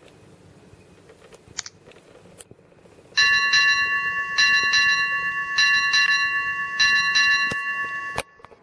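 Ship's bell sound played through a smartphone's small speaker: four groups of struck bell strikes, each group a double strike, about 1.2 seconds apart, starting about three seconds in and cut off suddenly with a click near the end.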